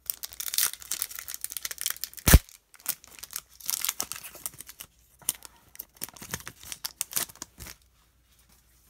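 A foil trading-card pack being torn open and crinkled by hand, with a single sharp knock about two seconds in. The crinkling stops near the end.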